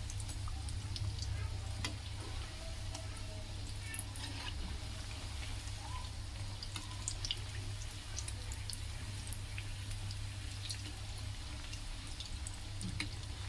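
Potato cutlets deep-frying in hot oil in a kadhai: a steady sizzle with scattered crackles and pops, while a slotted metal spoon turns them in the pan. A steady low hum runs underneath.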